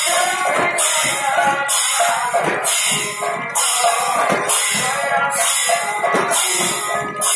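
Bengali kirtan music: several khol drums beat a fast, driving rhythm, with metal hand cymbals clashing on a steady pulse a little more often than once a second.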